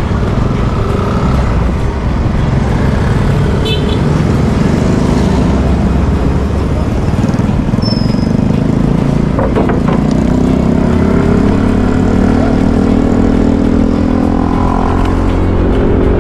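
Small motorcycle's engine running under way through traffic, heavily overlaid by wind rumble on the microphone; the engine note climbs in the second half as it picks up speed.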